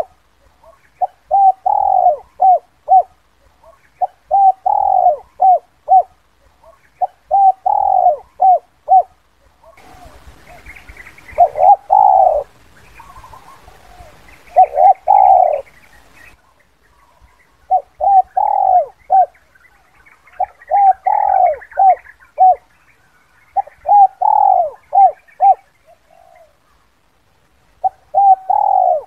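Spotted dove cooing its 'kuk 2' call: a short phrase of several notes, repeated about every two to three seconds. Small birds chirp faintly in the background.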